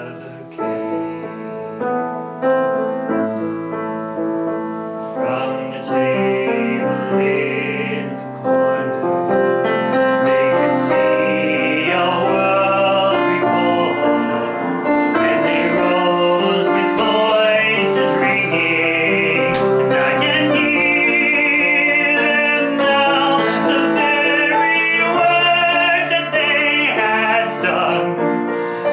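A man singing a slow, operatic musical-theatre ballad over piano accompaniment, with vibrato on held notes; the singing grows louder and fuller about eight seconds in.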